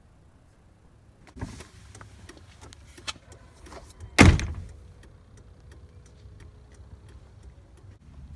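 Handling noises, then a loud single thud about four seconds in, like a pickup truck's door being shut. Faint, evenly spaced ticking follows, fitting the hazard flashers running.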